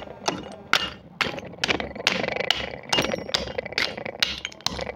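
Steel pestle pounding broken terracotta clay-pot shards in a mortar: sharp knocks about two to three a second, each with the crunch and crack of the baked clay breaking.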